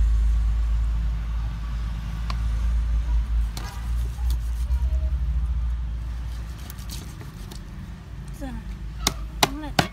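Low rumble of a motor vehicle's engine running nearby, fading away by about six seconds in, with a few sharp knocks near the end.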